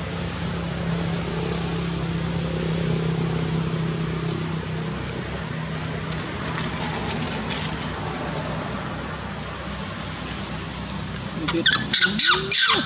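A steady low hum of a motor vehicle's engine runs underneath. Near the end, a baby long-tailed macaque gives a quick run of loud, high-pitched squeals.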